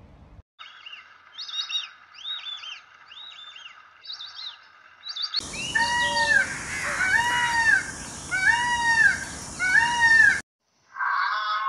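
Small birds chirping with quick high notes, then, about halfway through, a peacock calling loudly five times, about once a second, each call a rising-and-falling wail over steady background noise.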